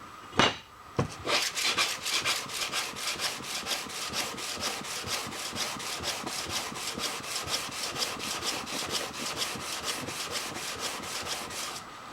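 A switch plate being rubbed back and forth by hand on 280-grit sandpaper on a sanding board, in quick, even, rhythmic strokes that start about a second in and stop just before the end.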